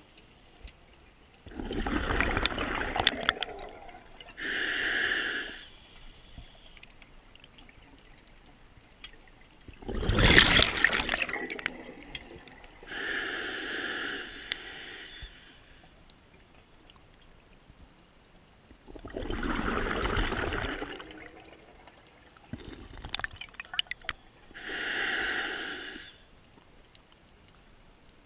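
A scuba diver breathing through a regulator underwater, with three slow breaths about nine seconds apart. Each is a loud rush of exhaled bubbles, followed a couple of seconds later by the hissing draw of an inhale through the regulator.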